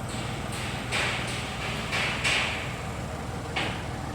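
An engine idling with a steady low hum, with about six short knocks or clatters over it; the loudest comes a little past two seconds in and trails off.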